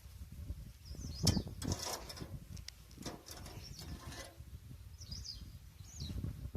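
Irregular clicking and scraping of hand-tool work, with a few short bird chirps about a second in and near the end.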